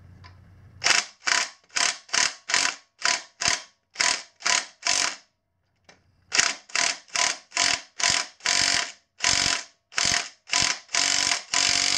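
Cordless DeWalt impact gun hammering on a tight engine bolt in short trigger pulls, about two to three rattling bursts a second. After a pause of about a second near the middle it goes on, the bursts growing longer toward the end as the bolt starts to give.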